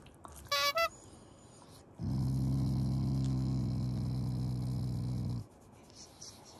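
A black Shiba Inu dog growling: one long, steady, low growl of about three and a half seconds, after a brief high-pitched sound about half a second in. The growl is the dog's habitual one at mealtime, which its owners say is not anger.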